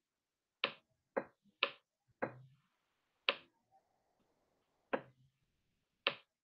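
About seven sharp, irregularly spaced clicks from writing on a computer screen, with silence between them.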